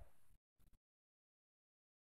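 Near silence: a faint fading tail in the first half-second, then dead silence.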